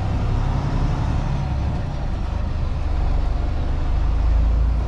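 Semi-truck diesel engine running as the rig moves slowly, heard from inside the cab: a steady low rumble that grows louder near the end.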